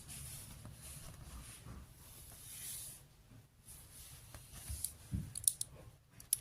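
Rustling and handling of toy pieces, with a few sharp clicks near the end.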